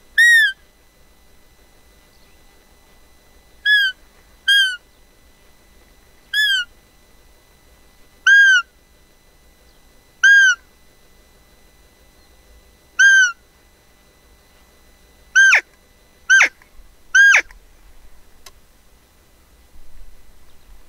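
Roe deer call blown to imitate a doe's peep during the rut, luring a roebuck: ten short high-pitched peeps a second or two apart. The last three come faster and slide steeply down in pitch.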